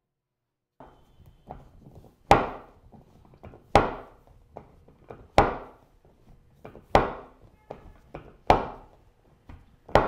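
Chiropractic drop table: the raised pelvic section drops to its stop with a sharp clack each time the chiropractor thrusts down on the hip. There are six evenly spaced clacks about a second and a half apart, with lighter knocks between them.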